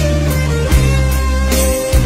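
Rock ballad band music: a held, bending electric guitar lead line over bass and drums, with drum hits about two-thirds of a second in and near the end.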